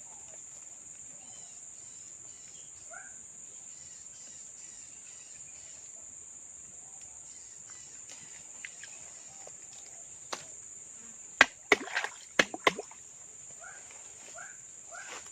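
Steady high-pitched drone of crickets or other insects. About two-thirds of the way in there are several loud, sharp clicks and knocks, and near the end comes a run of short calls repeated about twice a second.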